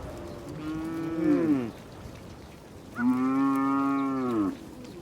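Cattle mooing twice. The first call comes about half a second in and falls off in pitch; the second, louder and longer, starts about three seconds in, holds steady, then drops at the end.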